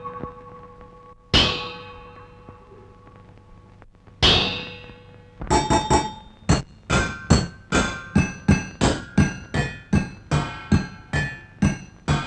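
Metal cooking pots struck as percussion. Two single clanging strikes ring on and die away, then from about five seconds in a quick steady rhythm of ringing pot strikes runs at roughly three a second.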